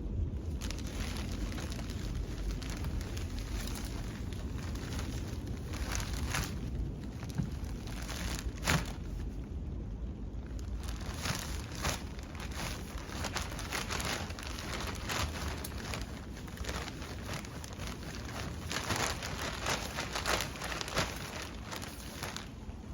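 Soil and potting mix being scooped and spread in a raised bed: irregular scraping and crunching strokes over a low rumble of wind on the microphone.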